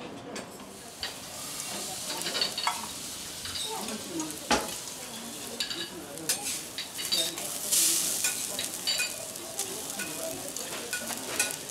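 Oil and small pieces of Tajima wagyu sizzling on a hot teppanyaki steel griddle, with metal spatulas clicking and scraping on the plate. The sizzle grows louder about eight seconds in as cooked rice is tipped into the hot oil for fried rice.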